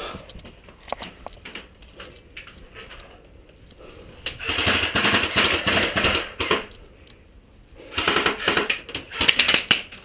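Airsoft guns firing full-auto in two long, rapid bursts, one about four seconds in and another about eight seconds in, with scattered single shots and clicks before them.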